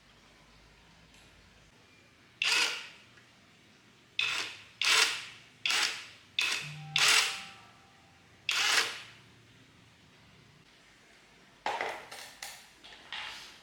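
A series of about ten sharp, noisy bursts at uneven intervals, each dying away within half a second, from hand work on a fan motor in a workshop: seven spaced through the first part, then a quick cluster near the end.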